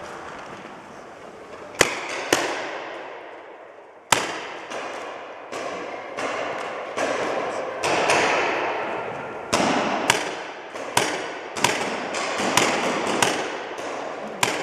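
Paintball markers firing in a large indoor hall: sharp pops, each followed by a long echo. Two shots come about two seconds in, then an irregular string of shots from about four seconds on.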